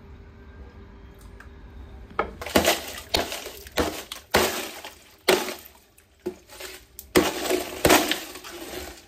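A block of ice frozen in a cut-open plastic jug being struck with a metal tool, cracking and clattering as chunks fall into a bucket of water. A rapid series of sharp cracks and clatters starts about two seconds in and continues, roughly one or two a second.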